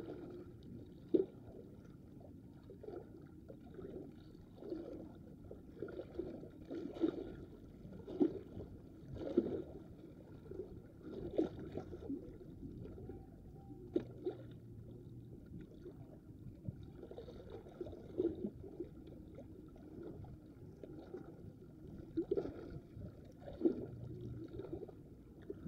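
Small waves lapping and splashing against rocks, with irregular splashes every second or two.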